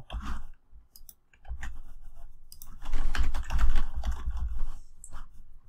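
Typing on a computer keyboard: a few scattered key clicks, then a fast, loud run of keystrokes from about a second and a half in until about five seconds in, as a web address is entered.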